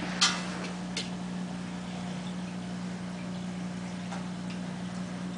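A small cat's ball knocking against a wooden TV stand: a sharp knock about a quarter second in and a lighter one about a second in, over a steady low hum.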